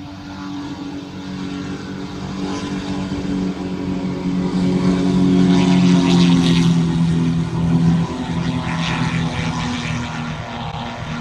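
A light propeller aircraft taking off, its engine at full power growing louder to a peak about six seconds in, then fading as it passes, the engine note sinking slightly as it goes.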